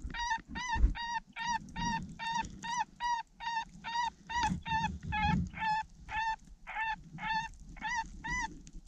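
Predator call sounding a steady series of about twenty short, high notes, roughly two or three a second, each rising and falling slightly in pitch, used to lure coyotes in; it stops just before the end.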